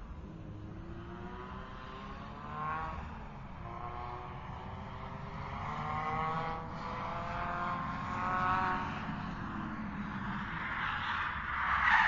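Racing car accelerating, its engine note climbing in pitch several times in a row as it revs up through the gears. Near the end a rising hiss of tyres skidding builds up.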